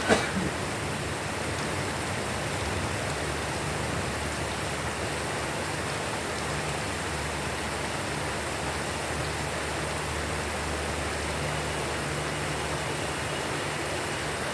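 Steady rain falling, an even hiss with a faint low hum underneath. Just after the start a single brief sharp sound rises above it.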